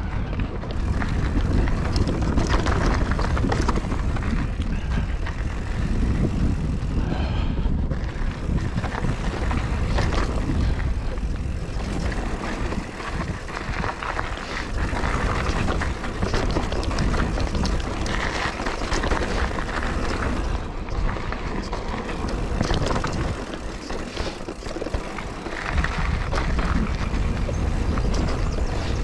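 Mountain bike being ridden along a dirt forest trail: tyres rumbling over the ground, with constant rapid clicks and rattles from the chain and bike over bumps and wind buffeting the action-camera microphone.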